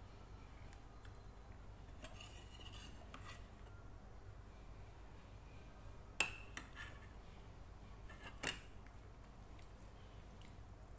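A metal spoon clinks sharply against a ceramic dish twice, about two seconds apart, with faint rustling of food being handled a few seconds before.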